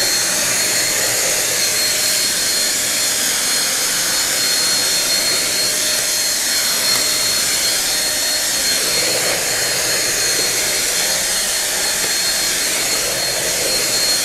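Perry Smith PS7000 corded stick vacuum with its 700 W cyclone motor running steadily at full suction, a rushing air noise with a steady high whine on top, as the floor head is pushed back and forth over a laminate floor.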